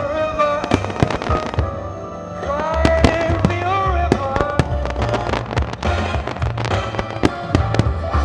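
Aerial firework shells bursting in quick, irregular succession over a loud music soundtrack, with a brief lull in the music about two seconds in.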